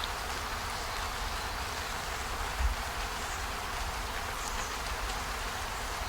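Steady hissing ambient noise with a low rumble underneath and a single low thump about two and a half seconds in.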